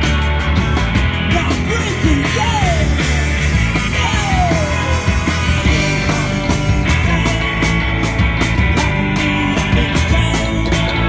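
Live rock band playing a song, with a steady drum beat.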